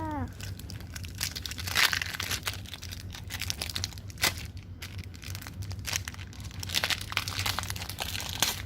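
Pokémon card booster pack's foil wrapper being torn open and crinkled in the hands, a continuous run of sharp crackles and rustles.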